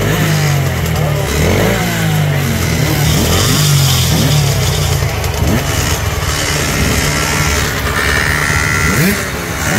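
Small mini dirt bike engine revving up and down again and again while the bike is bogged in deep mud and being pushed.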